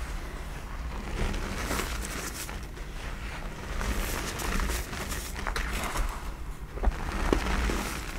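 Hands scooping and crushing soft reformed gym chalk in a bed of loose chalk dust: a steady soft crunching and crumbling as pieces break and fall through the fingers, with a few sharper crunches near the end.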